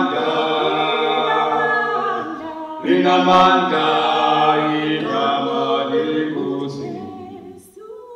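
Choir singing unaccompanied: a slow chorus in two phrases, the last held chord dying away near the end.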